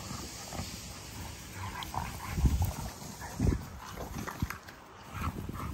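American Bully dogs play-fighting, with short, louder low sounds about two and a half and three and a half seconds in.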